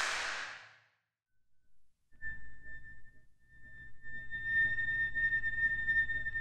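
A single ceremonial hand clap (kashiwade) with a ringing echo that dies away within about a second, followed by a moment of silence. About two seconds in, background music enters: one long, steady, high note over a low hum.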